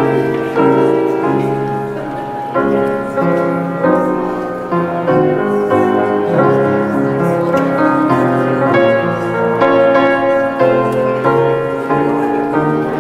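Grand piano playing a slow piece of sustained chords, the notes changing about every half-second to second.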